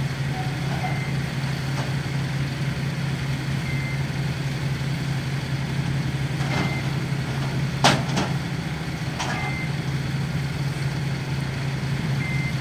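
An engine runs with a steady low hum, under a short high beep that repeats about every three seconds. There is one sharp click about eight seconds in.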